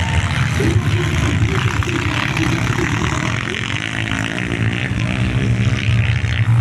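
Honda CG racing motorcycles on a dirt track, their single-cylinder four-stroke engines revving up and down as they race.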